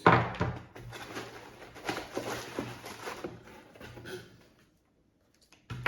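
Rustling and small clicks of packaging and parts being handled, stopping about four and a half seconds in.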